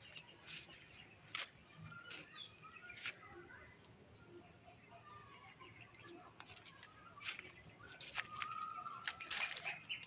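Birds chirping with short scattered calls and one held whistled note a little after eight seconds, over the crunch and rustle of footsteps through dry leaves and foliage.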